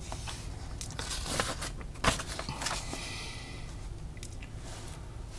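Pages of an old newsprint comic book being turned by hand: dry paper rustling and crinkling, with a sharp crackle about two seconds in.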